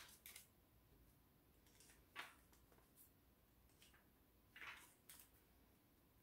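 Near silence: room tone broken by four or five faint, short rustles, like paper or cardboard being handled.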